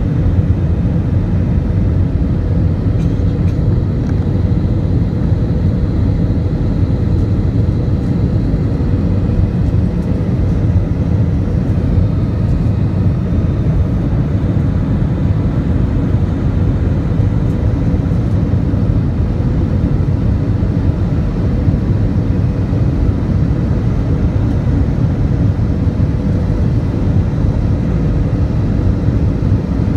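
Steady engine and airflow roar inside the cabin of an Airbus A320 airliner climbing out after takeoff, heaviest in the low end, with a faint steady hum above it.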